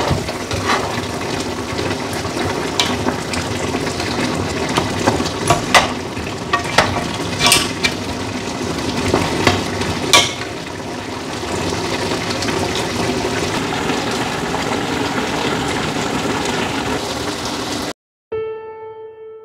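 Lamb pieces cooking in sauce in a pot with a steady sizzling and bubbling, while a spatula stirs them and knocks against the pot several times in the first half. Near the end the sound cuts off and piano music begins.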